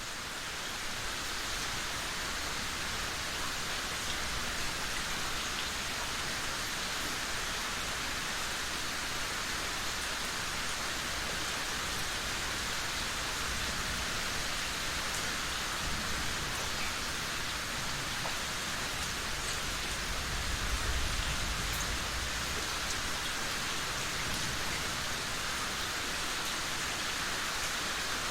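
Steady, even rainfall that fades in over the first second. A brief low rumble comes about twenty seconds in.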